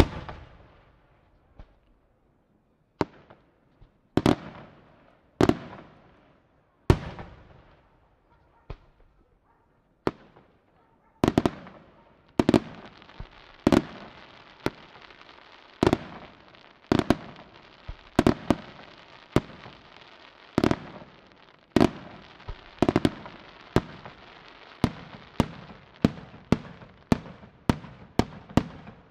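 Aerial firework shells bursting one after another, each a sharp bang trailing off in an echo. At first they come a second or more apart. Partway through they speed up over a steady crackle, quickening to several bangs a second near the end.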